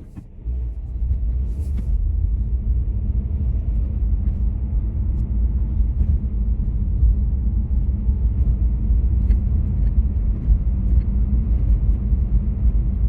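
Car driving: a steady low rumble of engine and road noise heard inside the cabin.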